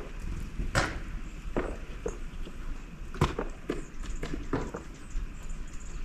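Slow, uneven crunching steps in snow, about six of them spaced roughly a second apart.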